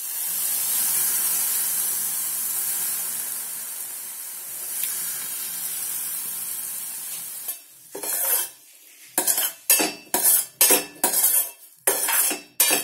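Water sprinkled onto chopped capsicum in a hot stainless steel pan sizzles and steams, the hiss slowly dying down over about seven seconds. Then a spoon stirs the capsicum, scraping and clinking against the steel pan in quick repeated strokes.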